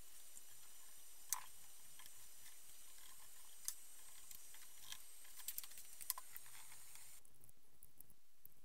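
Quiet room tone with a steady faint hiss and a few faint, isolated clicks, one about a second in, another near four seconds and a small cluster around six seconds.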